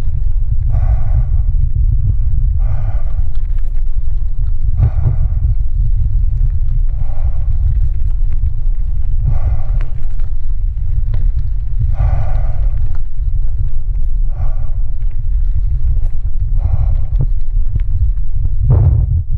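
Steady low rumble of wind buffeting the action camera's microphone while riding along a dirt track. A short squeak recurs about every two seconds.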